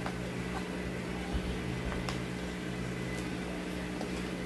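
Steady low hum of an appliance or mains electricity, with a few faint clicks and taps over it.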